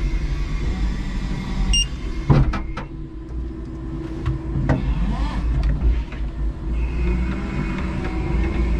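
Electric warehouse truck running, heard from the operator's cab: a steady low rumble with a faint hum of the electric drive and hydraulics, and a few sharp knocks about two and a half and five seconds in.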